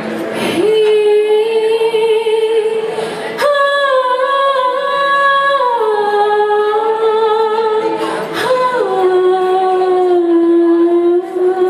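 A solo singer holding long, drawn-out notes with a slight waver, stepping up in pitch a few seconds in and then down twice, over a faint steady backing tone: the slow opening of a Hindi film song.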